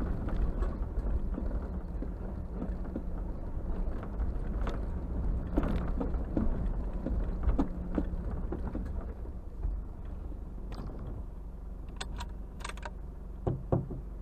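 Vehicle driving slowly over a rough dirt track, heard from inside the cab: a steady low engine hum with frequent knocks and rattles as it goes over the bumps, and a couple of louder knocks near the end.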